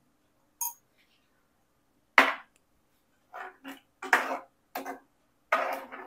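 Steel ladle knocking and scraping against the sides of an aluminium pressure cooker while stirring curry. There is a small ringing clink near the start and a sharp knock about two seconds in, followed by a run of short clatters and scrapes.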